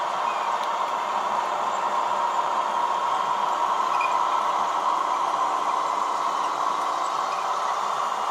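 H0e model trains running on the layout: a steady whirring of small motors and wheels on the narrow-gauge track.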